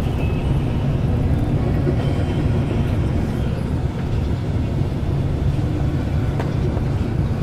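Bus engine and tyre noise heard from inside the passenger cabin while the bus is moving: a steady, deep drone with no breaks.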